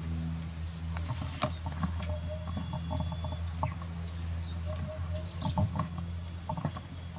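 Outdoor ambience: a steady low hum, with short high chirps like birdsong and scattered light clicks.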